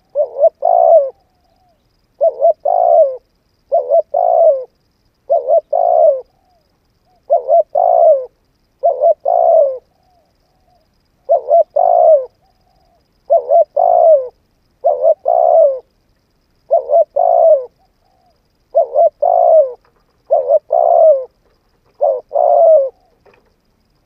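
Spotted dove cooing over and over: a steady run of short, two-part coos, about one every one and a half seconds, with a few slightly longer pauses between them.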